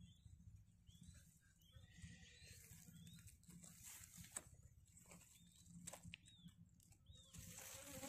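Faint, high peeping of newly hatched quail chicks in a ground nest: short arched chirps, roughly one every second, with a couple of soft clicks from the grass.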